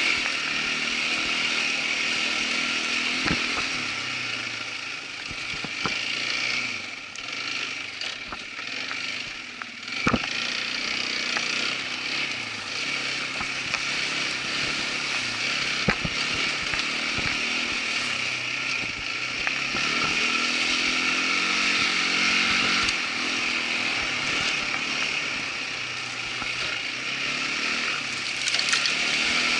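Irbis ATV 200 quad bike's small single-cylinder engine running on the move, its revs rising and falling. Several sharp knocks come through, the loudest about ten and sixteen seconds in.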